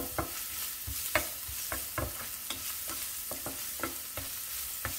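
Grated ginger and garlic sizzling in hot oil in a nonstick frying pan, stirred with a wooden spatula that scrapes and taps against the pan a few times a second.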